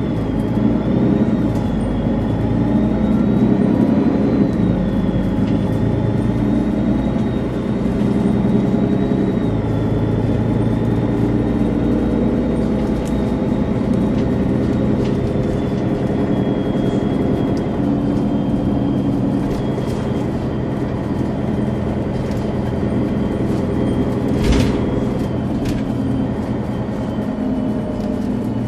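Mercedes-Benz Citaro O530G articulated bus running under way, its diesel engine rumbling with a thin, high turbo whistle over it that wavers slightly in pitch and grows fainter after about ten seconds. A single sharp knock about twenty-four seconds in.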